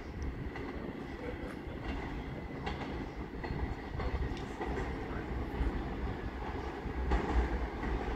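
R46 subway train approaching on the elevated tracks: a steady low rumble with scattered clicks of wheels over rail joints, growing a little louder toward the end.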